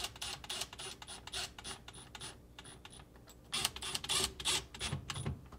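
Small cordless driver running screws into a plastic refrigerator pivot block: rapid mechanical clicking in two runs, the second starting about three and a half seconds in.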